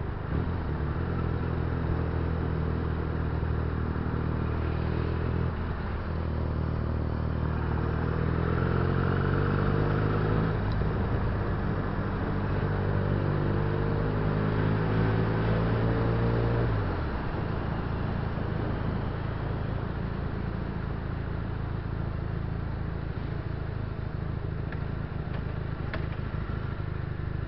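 Benelli TNT300/BN302 300 cc parallel-twin motorcycle engine pulling under way, its note climbing a few seconds in and then holding steady. About two thirds of the way through the throttle closes and the engine note drops away. What is left is wind and road noise as the bike rolls slowly in traffic.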